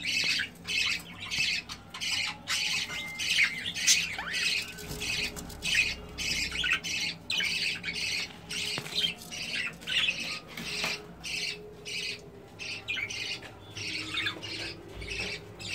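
Budgerigars chattering and squawking: an unbroken run of short, harsh calls, several a second.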